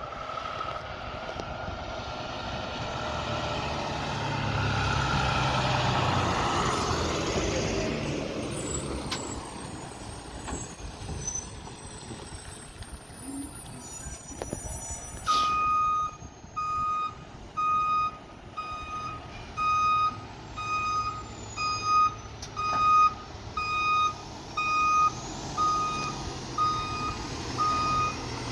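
A heavy vehicle's engine grows louder and fades away over the first third. About halfway through, after a single sharp sound, a fire truck's reversing alarm starts beeping steadily at about one beep a second over its running engine as it backs up.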